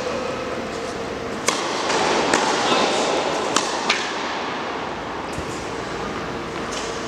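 A tennis ball being hit and bouncing on an indoor court: a handful of sharp pops in the first half, over the steady background noise of a large hall.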